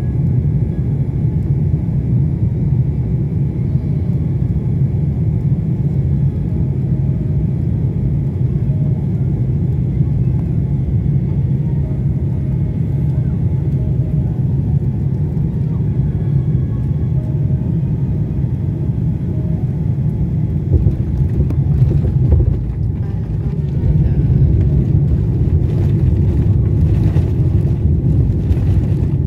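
Jet airliner cabin noise beside the wing engine during landing: a steady deep rumble of engines and airflow, with a brief jolt about 21 seconds in as the wheels touch down, then louder rushing from about 24 seconds in as the plane slows on the runway.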